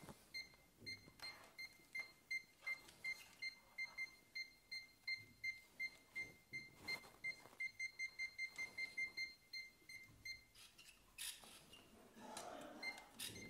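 UNI-T UT203+ clamp meter's non-contact voltage detector beeping, a short high beep about three or four times a second, as it is run along a live cord: it is sensing the phase conductor along the whole length. The beeping stops about ten and a half seconds in, with some handling noise, and starts again near the end.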